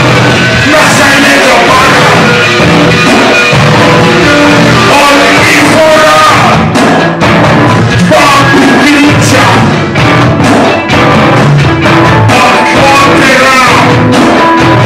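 Loud live rock band playing drums and guitar, with a man singing into the microphone.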